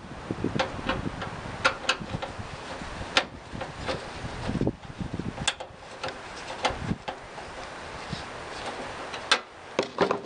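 Irregular sharp metallic clicks and light knocks of hand tools working on a car door latch mechanism, freeing it from the bare steel door shell, over a steady background noise.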